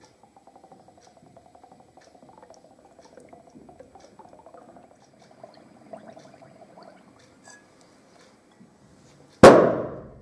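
Faint bubbling as butane gas is fed through a tube into soapy water, then about nine seconds in a single sharp bang that dies away in under a second: the soap bubbles, filled with a stoichiometric butane–air mixture, exploding on ignition.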